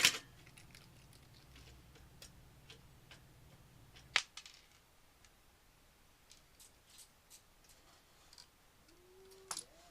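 Scattered light clicks and taps of a screwdriver and parts being worked inside a PC case, with a sharp knock at the start and another about four seconds in. A low hum stops at the second knock.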